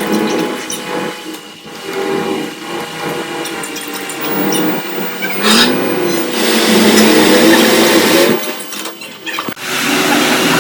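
Espresso machine running, a steady mechanical hum with loud bursts of hissing, one brief and one lasting about two seconds, during cleaning.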